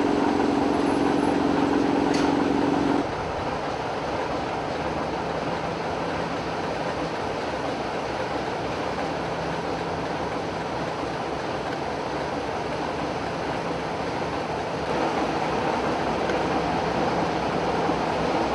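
Heritage British Rail diesel locomotive engines running at standstill, a loud steady drone. A strong droning tone cuts out about three seconds in, and the engine noise grows louder again near the end.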